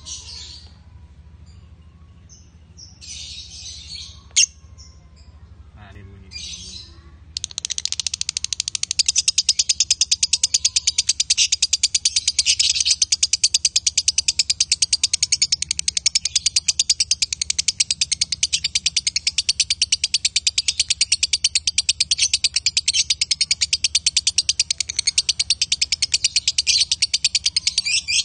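Lovebird giving a few short high chirps, then from about seven seconds in a long unbroken run of very rapid, evenly pulsed high chattering that goes on for over twenty seconds. This is the long 'ngekek' chatter that Indonesian keepers prize in a 'konslet' lovebird.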